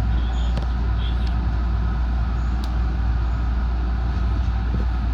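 Steady interior running noise of a JR West 207 series electric train: a constant low rumble with rail and body noise.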